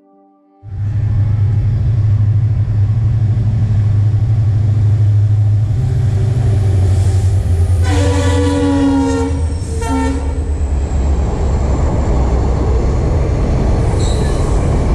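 A diesel locomotive hauling a passenger train passes at speed with a heavy engine rumble. About eight seconds in it sounds its horn: one blast of about a second and a half, then a short second blast. The rushing noise of the coaches going by follows.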